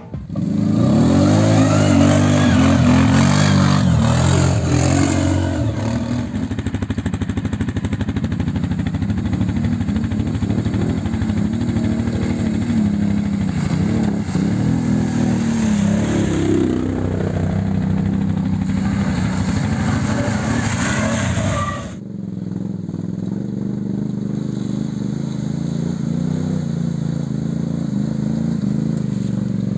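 ATV engines revving as the quads work through mud, their pitch rising and falling. About two thirds of the way in the sound cuts abruptly to a steadier, quieter engine note.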